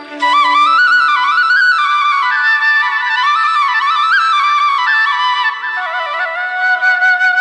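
Background music: a flute melody in quick stepping runs over a held drone.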